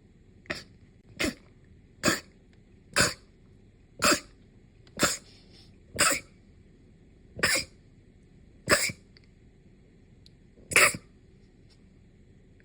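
A run of ten short, sharp sneezes, about one a second at first and spacing out near the end.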